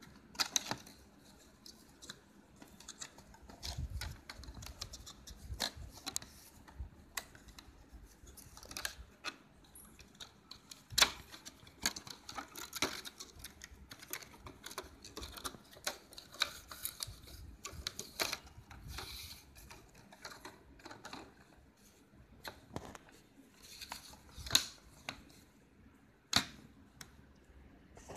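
Hands handling packaging and a small device: irregular clicks, taps and light rustling, with a few sharper knocks.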